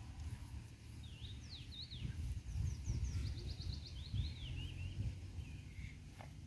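A songbird sings one varied phrase of quick rising-and-falling notes with a fast run of repeated notes in the middle, over a steady low rumble of outdoor noise.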